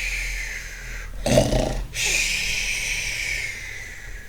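A person imitating snoring: a long exhale sliding down in pitch, a short rough snorting inhale about a second in, then another long exhale that falls in pitch.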